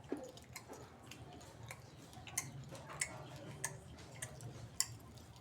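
A person chewing and crunching a fish bone, with sharp cracking crunches roughly once or twice a second.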